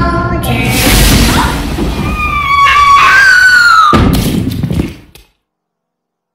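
A sung soundtrack song breaks off about half a second in with a loud thud. Loud noise with high wavering tones follows, then a second hit about four seconds in, and the sound cuts to dead silence about five seconds in.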